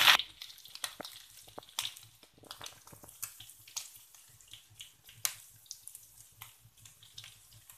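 Hot cooking oil crackling with scattered small pops and drips as fried tiny shrimp are scooped from a wok with a perforated metal skimmer and held over it to drain; one pop about five seconds in is louder than the rest.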